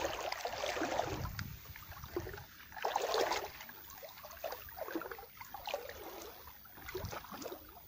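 Shallow water splashing and sloshing in irregular bursts as someone wades and works a fishing net through weedy water. The biggest splashes come near the start and about three seconds in, with smaller ones after.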